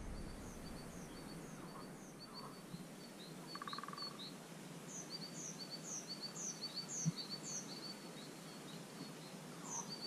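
Small songbirds singing faintly: quick high chirps repeating a few times a second over a soft outdoor hiss, with a short buzzing call about four seconds in and a single faint tap about seven seconds in.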